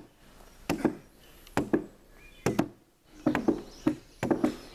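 Hafted gouges chopping into a log as it is hollowed into a dugout canoe. Sharp wooden chops come about once a second, several of them in quick pairs.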